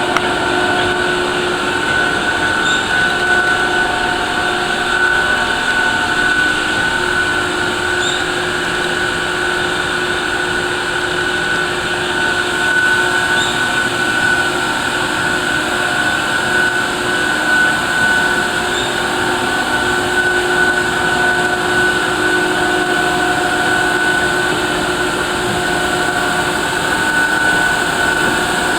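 Farrel roll grinder running: a steady mechanical hum and whine with several constant tones that holds level throughout, and a faint tick about every five and a half seconds.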